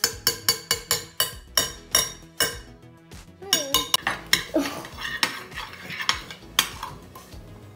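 Metal spoon clinking against a glass bowl: a quick run of sharp clinks for about the first two and a half seconds, then more scattered clinks as the spoon stirs through glue in the bowl.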